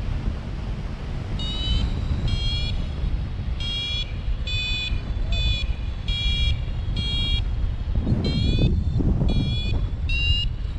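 Paragliding variometer beeping in short, evenly spaced tones about twice a second, signalling that the glider is climbing; near the end the beeps rise in pitch. Wind rushes over the microphone throughout, with a stronger gust about eight seconds in.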